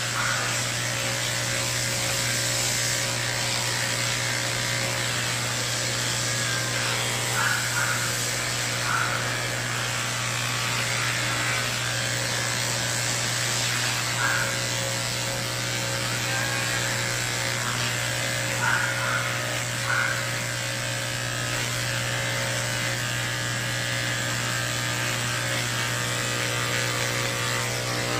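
Electric pet grooming clippers running steadily as they shave through a cat's heavily matted coat, with a few faint brief blips over the hum.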